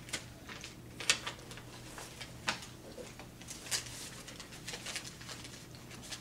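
Cardboard jigsaw puzzle pieces handled and pressed together on carpet: scattered soft taps and rustles, the sharpest about a second in.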